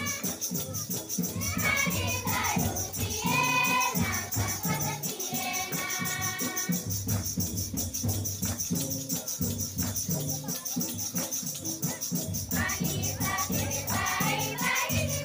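A group of young voices sings a Christian devotional song (bhajan) in unison over microphones, with a shaker-like rattle and drum keeping a steady beat. The voices pause for about five seconds in the middle while the percussion plays on, and come back in near the end.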